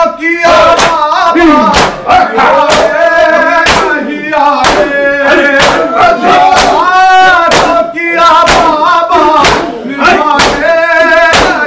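A group of men chanting an Urdu noha (Muharram lament) together, with matam: hands striking bare and clothed chests in unison, about three strikes every two seconds, keeping the beat of the chant.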